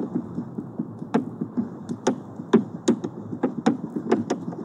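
Kinetic sand being crushed and compacted in a glass vase by a rod pressing down, a soft crunching with about a dozen crisp clicks at irregular intervals.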